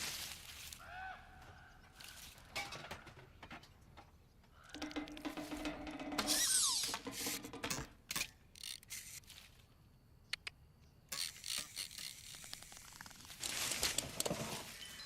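A string of cartoon sound effects with no dialogue or music: ratchety clicks and rattles, short whooshes, a brief pair of arching tones about a second in, and a falling sliding tone in the busiest, loudest stretch around the middle.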